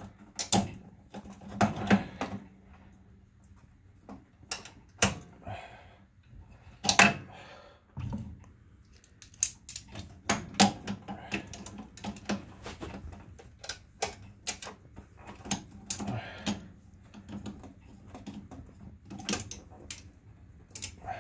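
Vise-grip locking pliers clicking, clanking and scraping against metal in irregular sharp knocks as they are worked on a snowblower's oil drain spout.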